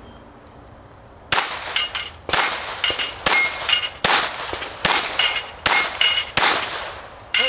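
A Glock 44 .22 LR pistol fires a string of shots at steel plates, about one every half second to second. Each hit gives a metallic clang and a brief ring from the struck 6-inch steel plates. The first shot comes about a second and a half in.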